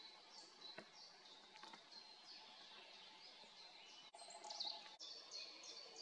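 European robin singing faintly: a run of high, thin, quickly falling notes that grows louder about four seconds in.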